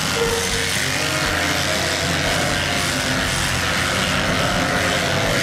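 Electric sheep-shearing machine running steadily as a sheep is being shorn: a continuous motor hum with the clatter of the cutter.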